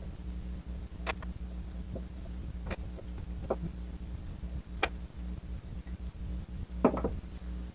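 About five separate small clicks and taps of metal parts as the valve is worked out of a gas airsoft pistol magazine, the loudest near the end. A steady low hum runs underneath.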